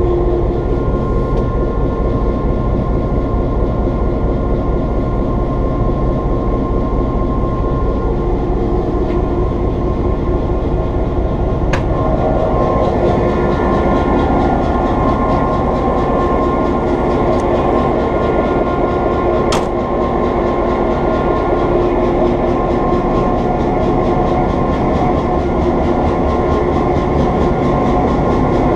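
EMD GP7 locomotive's 16-cylinder 567 diesel idling steadily with a deep, even rumble. It is heard first from inside the cab, then louder and closer once out on the walkway beside the engine hood, from about twelve seconds in. There is a sharp click at about that point and another near twenty seconds.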